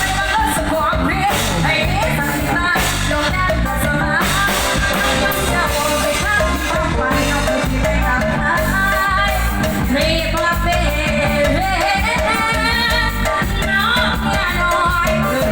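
A woman singing a Thai song with vibrato over full band accompaniment with a steady beat.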